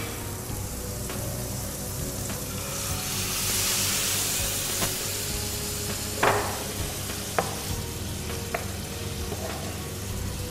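Shrimp and vegetables sizzling in a frying pan just doused with white wine, the sizzle swelling louder a few seconds in. Stirring with a wooden spatula, with a few sharp taps against the pan.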